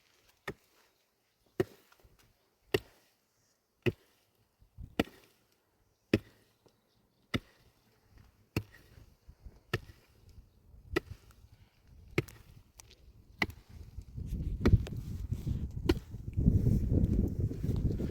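Wood being chopped with steady, evenly paced strokes, a sharp chop about once a second. In the last few seconds a low rumbling noise rises under the strokes.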